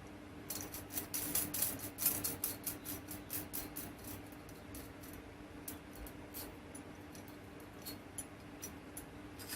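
Small metal antenna-mounting hardware being handled and worked loose: a run of light clicks and rattles, busy for the first few seconds and then scattered, over a faint steady hum.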